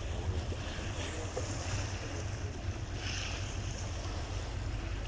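A ship under way at sea: a steady low engine rumble under the rush of water along the hull, with wind buffeting the microphone.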